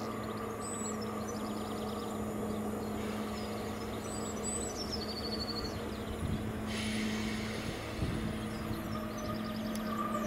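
Northern Class 142 Pacer two-car diesel railbus approaching the platform, its underfloor diesel engine giving a steady drone. A hiss joins the drone about seven seconds in as the train draws near.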